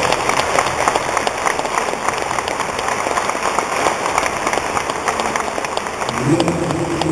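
Audience applauding, many hands clapping at once, with a voice calling out near the end.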